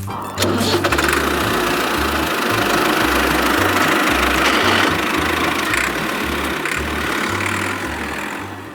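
A steady, rattling engine-like running noise that starts about half a second in and fades near the end, over background music with a bass line.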